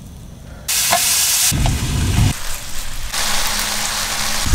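Split sausages sizzling in a frying pan over a camp stove, the sizzle starting suddenly about a second in, with a brief low rumble partway through.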